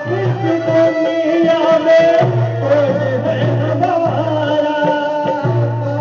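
Hindi devotional bhajan music: a held melody line moving in pitch over low sustained bass notes, with light percussion.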